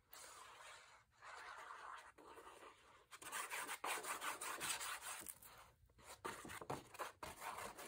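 Tip of a plastic squeeze bottle of liquid adhesive rubbing and scratching across 65-pound kraft cardstock as glue is squeezed out in long squiggly lines. The sound is faint, in uneven stretches with short pauses.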